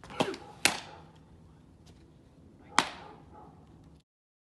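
Sharp leather smacks of a fastpitch softball popping into a catcher's mitt: two close together near the start and a louder one about three seconds in.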